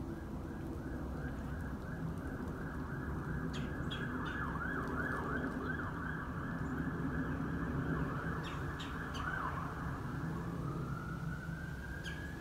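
Police siren in a rapid warbling yelp that changes about ten seconds in to a slow rising wail. A few short high chirps come over it in three brief clusters.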